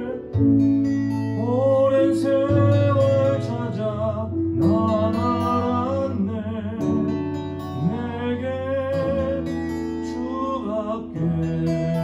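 Worship song: voices singing a slow melody over acoustic guitar and held low notes that change every couple of seconds.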